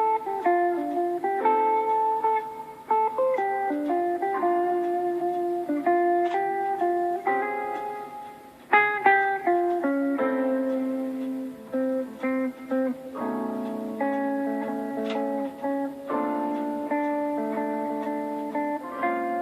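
A Samsung Galaxy Fold 4 preloaded ringtone playing through the phone's speaker: a melody of plucked, guitar-like notes, with a brief break about eight and a half seconds in.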